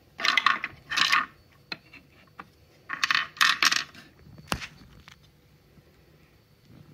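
Small wooden knobbed cylinders from a Montessori cylinder block clacking against each other and the wooden bowl as a hand rummages through them. Two clusters of clattering come about a second apart from three seconds apart, then a single sharp knock near the middle.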